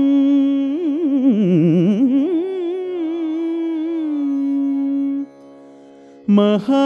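Male Carnatic vocalist singing a long drawn-out vowel, wavering in quick ornamented turns about a second in, then settling on a steady held note. The voice stops about five seconds in, leaving only a faint tanpura drone, and comes back near the end.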